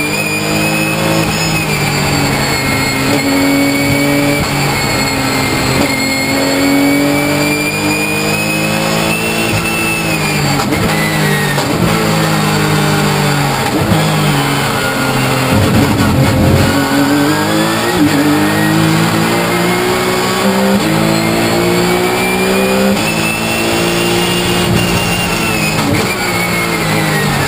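Porsche 997 GT3 Cup's flat-six racing engine heard from inside the cockpit at racing speed, its pitch climbing under acceleration and dropping at gear changes and braking, over and over. A rougher burst of noise about halfway through.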